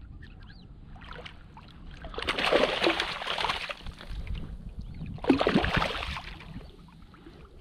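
Water splashing in two loud bursts, about two seconds in and again about five seconds in: a hooked speckled trout thrashing at the surface as it is reeled in.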